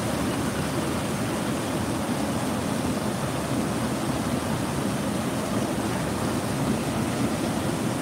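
Steady rush of water pouring over a concrete dam spillway and churning into whitewater below.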